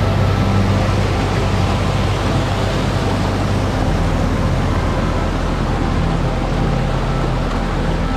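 Steady rushing of falling water from a waterfall, with sustained low tones underneath that shift about halfway through.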